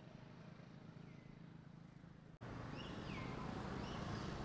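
Outdoor ambience with a steady low rumble that cuts abruptly a little over two seconds in to louder ambience. After the cut come a few short, high, arching animal calls.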